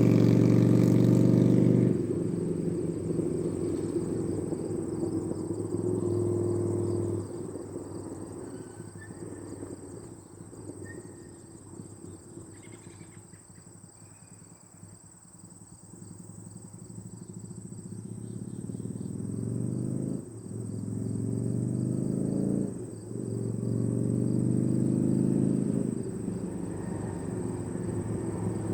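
Honda CB450's parallel-twin engine accelerating away and fading into the distance, then growing louder again as the bike comes back, with two brief drops in engine sound about two-thirds of the way in as it shifts up a gear.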